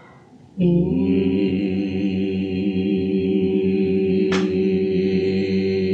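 A man's low voice chanting one long sustained meditation tone. It starts just under a second in and holds a steady pitch.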